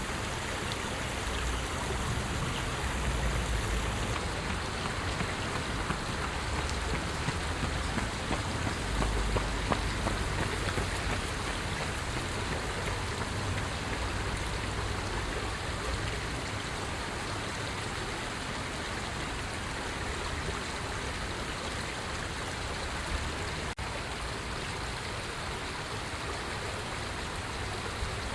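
Steady rushing outdoor background noise like running water, with a few low rumbles and no bird calls.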